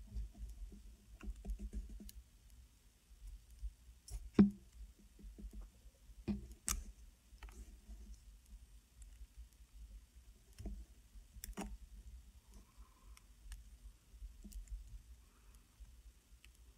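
Scattered small metal clicks and taps of cutters working on a rebuildable tank's coil deck, with one sharp snap about four seconds in as the cutters clip a Clapton coil's lead wire.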